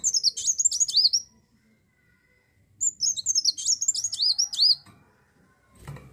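Kolibri wulung, a sunbird, singing two fast, high twittering phrases of swooping notes, the first at the start and the second about three seconds in.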